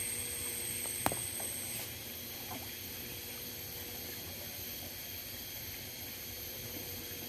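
A long-handled dip net stirring pond water, giving faint water sounds over a steady hiss, with one sharp click about a second in.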